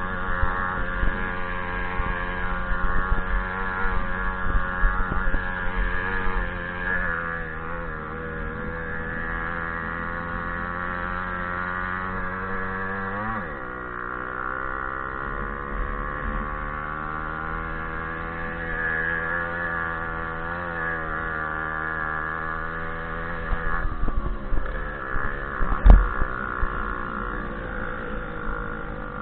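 Small two-stroke moped engine running, its pitch falling sharply about halfway through as the revs drop, then holding steady. A single sharp knock near the end.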